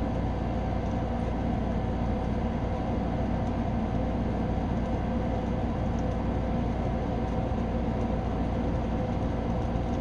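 A steady mechanical drone with a constant low rumble beneath it, holding the same level without any sudden sounds.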